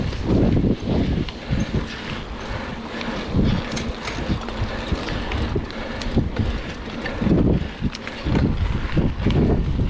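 Wind buffeting the microphone of a mountain bike rolling fast along a gravel track, with gusty low rumbles and scattered clicks and rattles from the bike over the rough surface.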